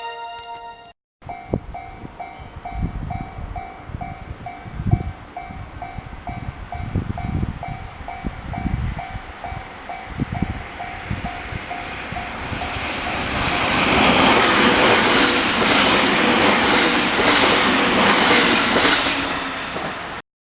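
Railway level crossing warning bell ringing a steady, evenly repeating ding, about two a second. From about twelve seconds in, a train comes through and its running noise swells loud, covering the bell.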